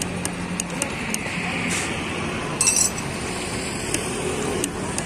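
Scattered light metallic clinks from work on a motorcycle's rear wheel hub, with one short, louder clatter about two and a half seconds in.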